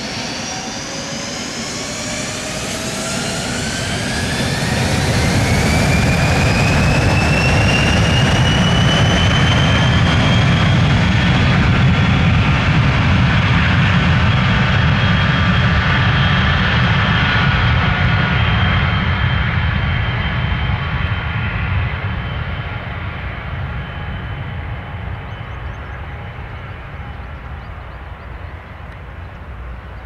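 Dassault Falcon 900EX business jet's three Honeywell TFE731 turbofans spooling up to takeoff power, with a whine rising in pitch over the first five or six seconds. It then gives a steady loud jet roar on the takeoff roll, which fades and loses its high whine as the jet accelerates away down the runway.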